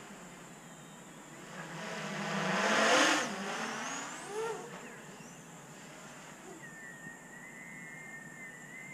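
Large 12S X-Class racing drone flying past: its propeller whine swells to a loud peak about three seconds in, then fades as it flies away.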